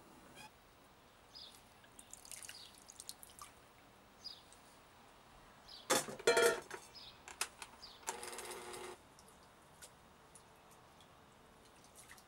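Soaked paper napkins and water being handled at a glass blender jar: dripping and small wet sounds, a loud clatter about six seconds in as the lid is pressed onto the jar, then a steady buzz about a second long.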